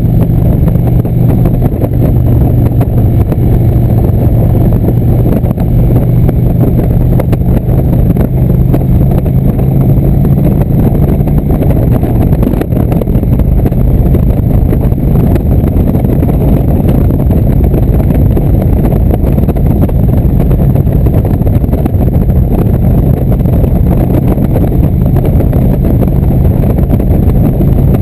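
Indian motorcycle's V-twin engine running steadily at highway cruising speed, heard from the rider's seat with wind rush over the microphone. The engine note changes about twelve seconds in.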